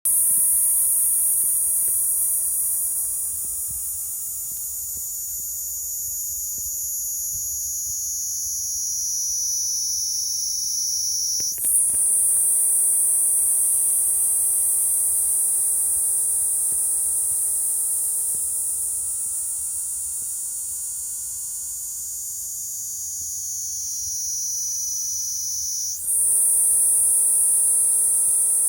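Kaempfer cicada (niinii-zemi, Platypleura kaempferi) singing a loud, unbroken, shrill high buzz. Its pitch sinks slowly, then restarts higher twice, about 11 seconds in and near the end.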